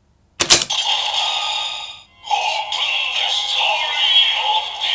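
Kamen Rider Saber DX Omni Force and Grimoire Wonder Ride Book toy: a sharp click about half a second in, then the toy's electronic voice calling "Open the story of despair" twice over its synthesised music.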